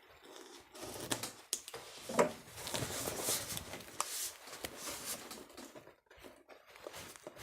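Speaker retail packaging being opened by hand: cardboard and plastic rustling and scraping, with a quick, uneven run of small clicks and taps that eases off near the end.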